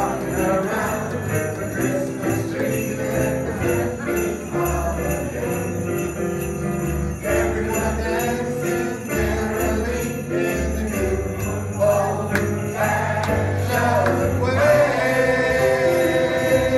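A man and a boy singing an upbeat Christmas song into microphones, over an accompaniment with jingling sleigh bells and a steady bass line; the music grows fuller near the end.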